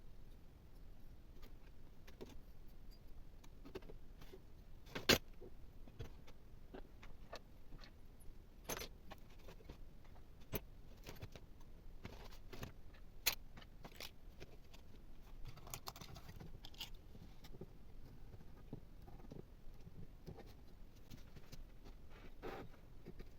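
Scattered clinks and knocks of small metal coffee-grinder parts being handled and set down, the sharpest about five seconds in.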